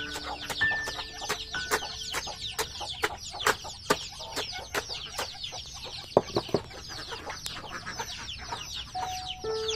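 Chickens clucking, with many high, quick falling peeps and cheeps running densely throughout.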